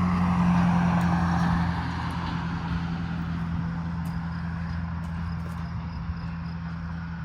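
A steady low motor hum, with a louder rushing noise over the first couple of seconds that slowly fades away.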